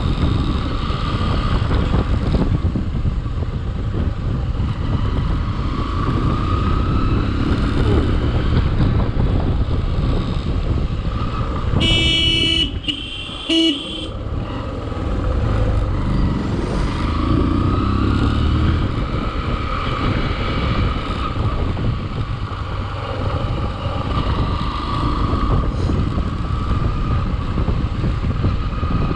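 Motorcycle riding along with a steady low rumble of engine and wind. A vehicle horn honks twice about twelve and thirteen and a half seconds in, the first honk longer.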